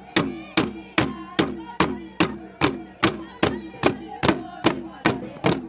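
Traditional drum struck in a steady beat of about two and a half strikes a second, each hit sharp and ringing briefly, with voices chanting along as dance accompaniment.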